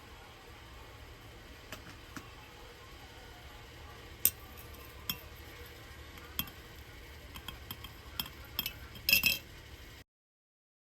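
Light, scattered clinks and taps of small hard objects, like glass or utensils, over faint background hiss. A quick run of clinks comes just before the sound cuts out about ten seconds in.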